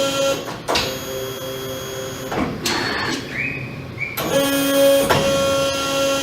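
Servo-driven hydraulic pumps of a Toyokoki hybrid electric-hydraulic CNC press brake running with a steady hum. The pitch shifts about half a second in and briefly gives way to a short rising whine near the middle as the ram cycles, before the original hum returns.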